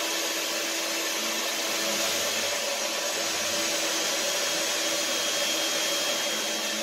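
Small electric stand mixer running steadily, its motor beating a runny flour, yeast and water batter for bagel dough.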